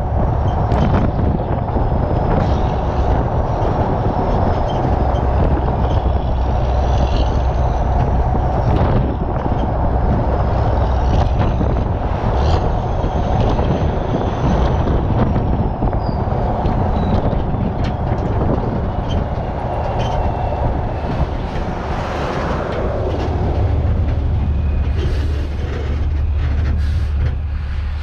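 Semi-truck towing a detachable lowboy trailer down the road, heard from the trailer deck: steady road and tyre noise under the truck's low engine drone, which swells now and then, with scattered clicks and rattles from the rig.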